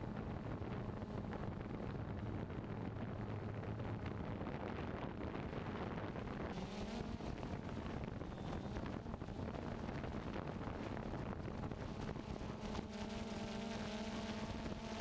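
Quadcopter drone's electric motors and propellers humming steadily, heard from the onboard camera's microphone with wind noise over it; a few higher steady tones join near the end.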